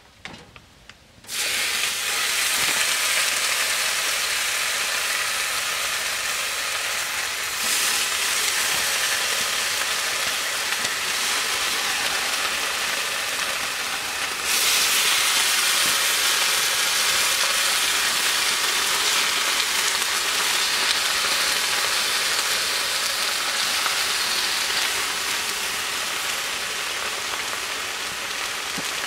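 Turkey bacon sizzling on a hot cast iron Dutch oven lid flipped over as a griddle. The sizzle starts suddenly about a second in and gets louder in two steps as more slices go down.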